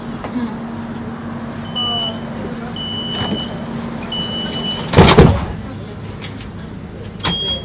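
Door-closing warning of a DUEWAG B80D light-rail car: three short high beeps about a second apart, then the doors shut with a loud thump about five seconds in. A single short beep with a click follows near the end.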